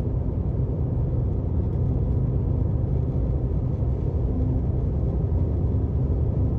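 Steady low rumble of a car driving along a paved road: tyre and engine noise at cruising speed.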